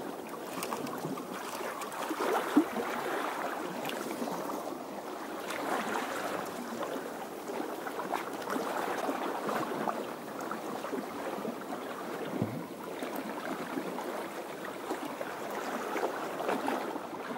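Sea water washing against shore rocks: a steady rush that swells every few seconds, with one sharp knock about two and a half seconds in.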